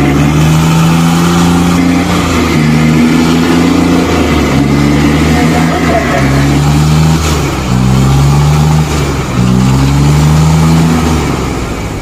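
Two diesel tractor engines working at full load in a tug-of-war pull. Their pitch surges up and down every second or two, and they ease off near the end.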